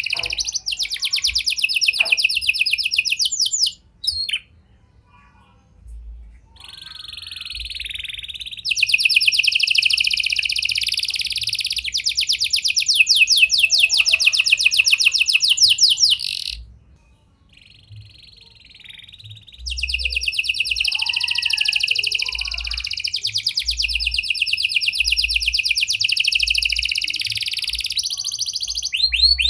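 Domestic canary singing: long, rapid, high trills in extended phrases. The song is laced with prenjak (prinia) and lovebird-style phrases. It breaks twice for a few seconds of softer, scattered notes, about four seconds in and again past the middle.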